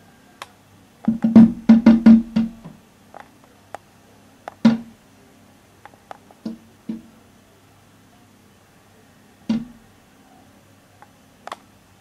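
A seagull rapping its beak on a window pane: a quick run of about eight knocks, then single knocks every second or two. The gull knocks to be given bread.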